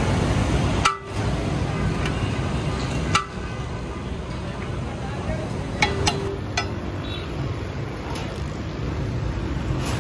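Steady street traffic noise, with a few sharp clinks of a metal serving ladle against the steel biryani pot and plate, each ringing briefly.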